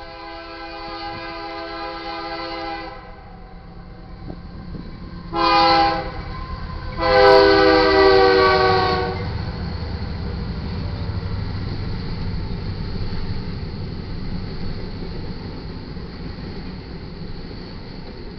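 A BNSF GE AC44CW diesel locomotive's air horn blows the grade-crossing signal: a long blast, a short one, then a long loudest blast as the locomotives pass. Then comes the steady rumble of the intermodal train's double-stack cars rolling by.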